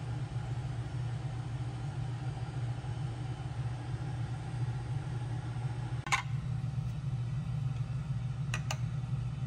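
Steady low hum of an overhead exhaust hood fan running above a charcoal table grill, with a sharp click about six seconds in and two quick clicks near the end.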